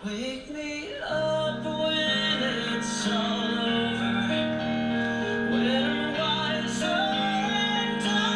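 Recorded music: a solo singing voice over sustained, held chords, with the fuller accompaniment swelling in about a second in.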